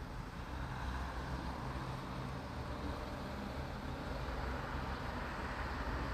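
Steady road noise heard from inside a moving car: a low rumble of engine and tyres with an even hiss.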